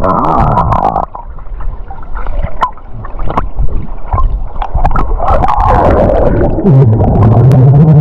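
Muffled underwater sound heard through an action camera's housing, with gurgling and many small bubble clicks. From about seven seconds in, a swimmer's voice carries underwater as a long, steady low hum.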